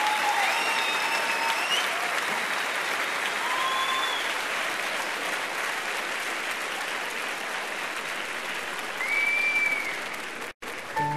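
A live concert audience applauding, with whistles and cheers, after a song ends. About ten and a half seconds in, the applause cuts out for an instant, and a piano begins right at the end.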